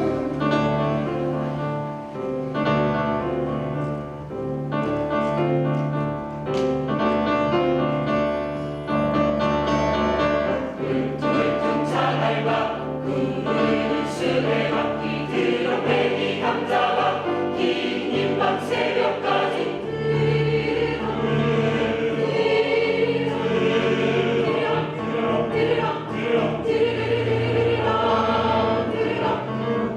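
Choir singing in several parts over sustained low bass notes.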